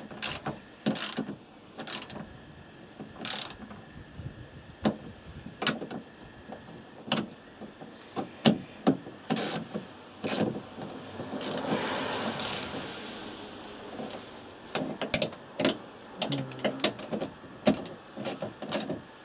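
Bolts on a van's sliding-door handle mechanism being tightened by hand tool: irregular metallic clicks and knocks, with a softer rustling swell about twelve seconds in.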